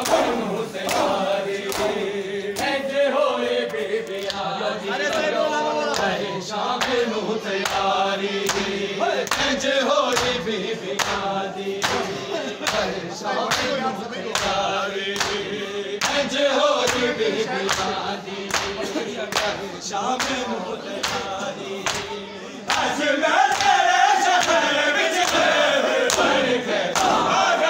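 Male mourners chanting a noha lament together, with the slaps of hands striking bare chests (matam) keeping a steady beat under the voices. The chanting gets louder and fuller near the end.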